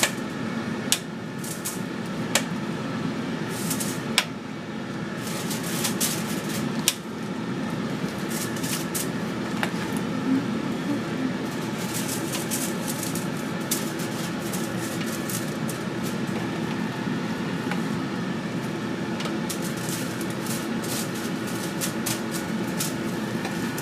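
A countertop cooking appliance runs with a steady hum. Scattered light clicks and crinkles come from raw shrimp being picked out of a plastic tub and bag and laid one by one on foil over coarse salt.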